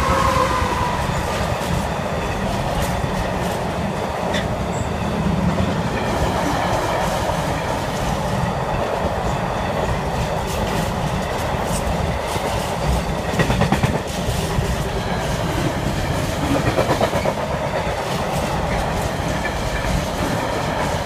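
Class 66 diesel-electric freight locomotive passing close by with its two-stroke V12 diesel running, followed by a long rake of loaded container flat wagons rolling past at speed, wheels clattering over the rail joints in a steady, continuous roar of train noise.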